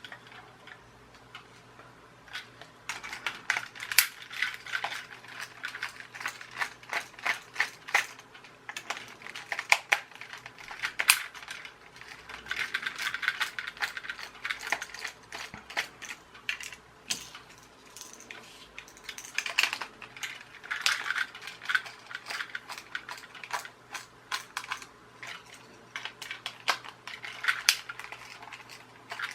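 Small hard plastic and metal parts being handled: a long run of irregular clicks, taps and rattles, coming in clusters after the first couple of seconds.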